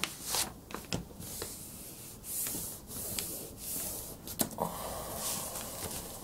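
A sheet of A4 paper being folded and creased by hand on a tabletop: palms and fingers slide along the fold in several rubbing, rustling strokes, with a few light taps and crinkles.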